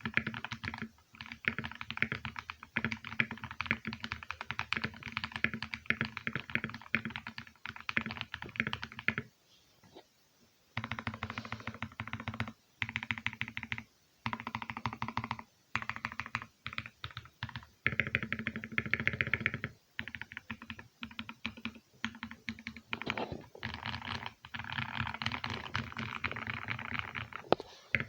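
Typing on a mechanical keyboard fitted with its stock keycaps: fast runs of key clacks broken by short pauses, with a dense flurry of strokes a little past the middle.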